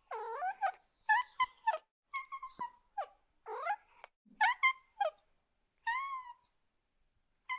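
A kitten meowing: about seven short, high-pitched meows in quick succession, some rising and some falling in pitch.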